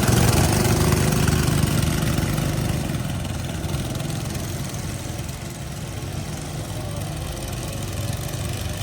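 Small petrol go-kart engine idling steadily, a little quieter after about three seconds.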